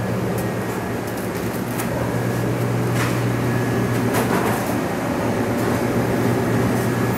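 Steady low electrical machine hum, like shop refrigeration, over a background haze of room noise, with two faint clicks about three and four seconds in.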